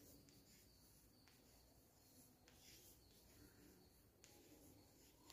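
Faint scratching and light taps of chalk on a chalkboard as letters are written, each stroke short and soft over near silence.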